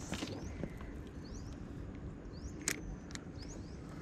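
A small bird calling with short, high, rising chirps, repeated about every half-second to second, over a low steady rumble of background noise, with two sharp clicks near the middle.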